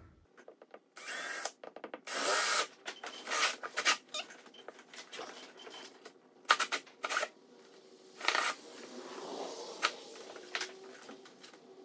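Cordless drill with a step drill bit running in a series of short trigger bursts, boring out a hole in a plastic tank lid.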